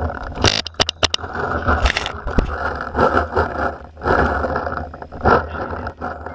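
Action camera scraping and knocking against grass during a dive and roll, with sharp cracks about half a second in and a quick run of them around one second in.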